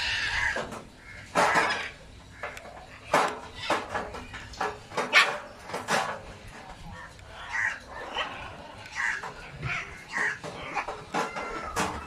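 A flock of macaws squawking: many short calls from several birds, overlapping and coming at irregular intervals.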